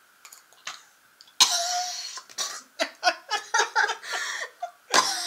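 A boy coughing and gagging on a raw oyster he cannot swallow: a short run of sudden, irregular coughs and gags that starts about a second and a half in, with another loud one near the end.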